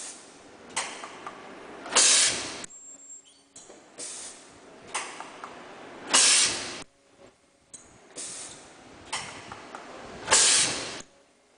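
Ultrasonic plastic lid-welding machine cycling three times, about every four seconds. Each cycle starts with a click and a softer steady hiss and ends in a short, loud hiss.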